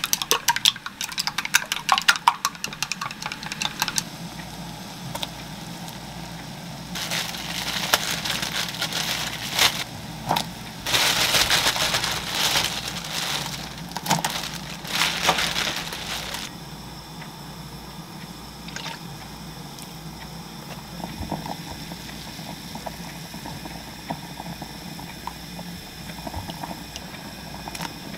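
Chopsticks beating eggs in a glass measuring cup: a fast run of clicks for the first few seconds. Then a pot of broth at a rolling boil as acorn rice cakes (muk-tteok) are dropped in, splashing and bubbling loudly for several seconds. A quieter, steady boiling hiss follows.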